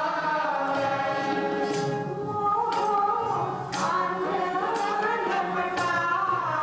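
Sikh kirtan: women's voices singing a devotional hymn, accompanied by harmonium and tabla.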